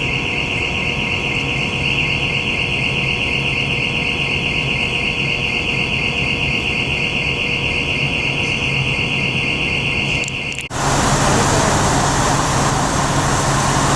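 Hotel fire alarm sounding one steady, unbroken high-pitched tone over a low hum. About ten seconds in it cuts off abruptly and gives way to the even rush of street traffic.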